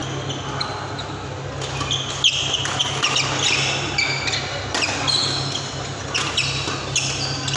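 Badminton doubles rally: sharp racket-on-shuttlecock hits and brief squeaks of court shoes on the synthetic court mat, at irregular moments, over a steady low hum.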